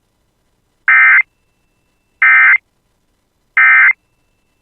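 Emergency Alert System end-of-message (EOM) code: three short, identical bursts of digital data tones about a second apart, signalling the end of the alert.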